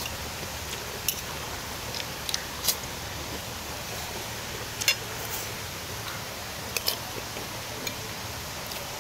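Forks and spoons clicking against ceramic plates while people eat, a few sharp clinks scattered over a steady background hiss.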